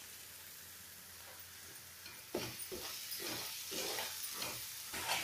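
A metal spoon stirring and scraping masala paste around a metal kadhai, a run of strokes about three a second starting about two seconds in, over a faint sizzle of the paste frying in oil on low heat.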